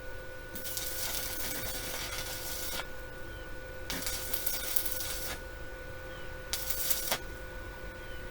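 Stick welding arc crackling and sizzling from a Deko inverter welder's rod on a steel mower deck, in three runs: a long one of about two seconds, a shorter one near the middle, and a brief one near the end.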